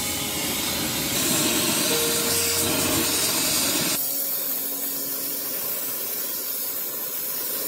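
LPG-and-oxygen torch flame hissing steadily as it heats silver in a crucible to melting. About four seconds in, the sound changes abruptly, losing its low rumble and leaving a thinner hiss.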